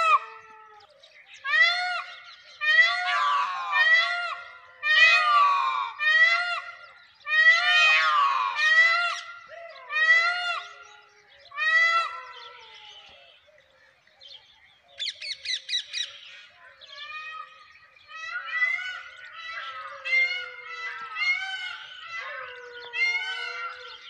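Indian peafowl (peacocks) calling: loud wailing cries repeated in quick succession. About halfway through there is a lull and a short rapid rattle, then softer, closer-spaced calls.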